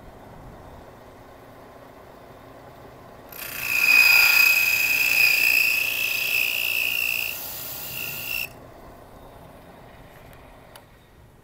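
Harbor Freight drill press milling the face of a poker chip: the spinning cutter bites in about three seconds in with a loud, high-pitched shriek that lasts about five seconds, eases a little, then cuts off suddenly.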